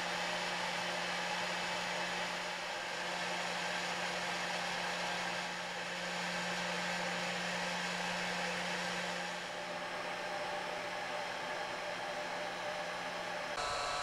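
Heat gun blowing hot air steadily onto a refrigerator's frosted evaporator coils to thaw the ice, a constant fan rush with a low hum under it.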